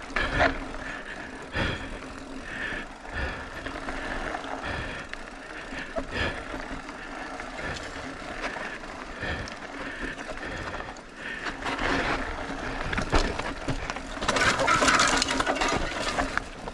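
Mountain bike rolling down bare granite rock: tyres rumbling and scrubbing on the stone, with the bike rattling and knocking over bumps. The noise grows louder and denser for a couple of seconds near the end.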